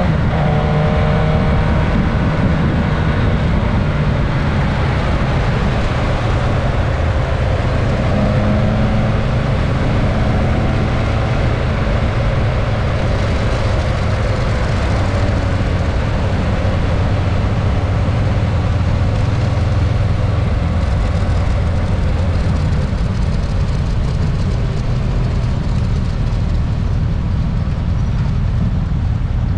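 Suzuki GSX-S1000S Katana's inline-four engine heard on board under way, finishing a rise in revs at the start, then running at a steady cruise under a broad rush of wind and road noise.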